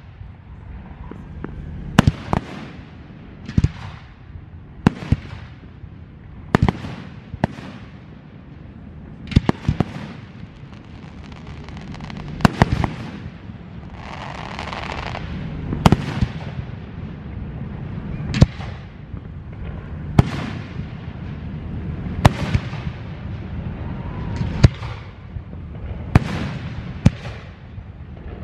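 Fireworks display: aerial shells bursting in a steady run of sharp bangs, about one every second or two, some coming in quick pairs or triples, each followed by a short fading echo.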